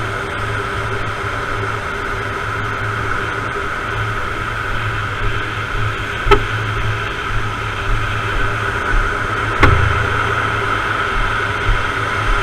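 Steady muffled rush of water and wind on a surfing paddle board's camera, with two sharp knocks about six and nine and a half seconds in, the second a heavier thud.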